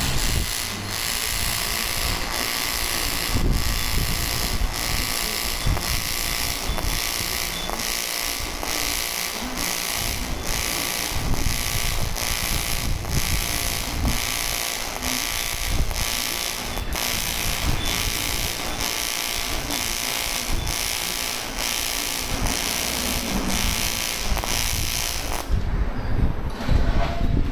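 AC TIG welding arc on aluminium: a steady crackling buzz with a regular pulsing beat, which cuts off about two seconds before the end as the arc is stopped.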